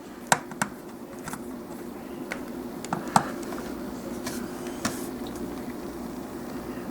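Light clicks and taps of a plastic toy figure being handled and turned, scattered irregularly, the sharpest about three seconds in, over a steady low hum in the room.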